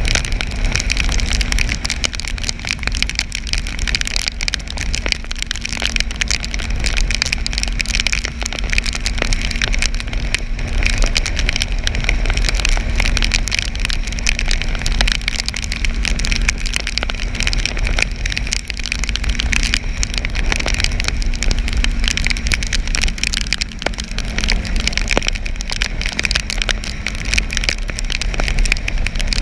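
Onboard sound of a motorcycle riding in the rain at highway speed: heavy wind rumble on the microphone, a steady hiss of rain and tyre spray, and a steady engine note that shifts slightly near the end.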